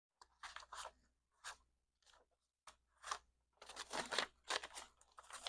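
Paper banknotes being handled and counted by hand: a string of short, crisp rustles and flicks that come faster and closer together in the second half.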